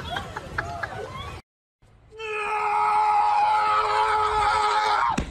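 A dog giving one long, steady howl at an even pitch, lasting about three seconds and starting about two seconds in.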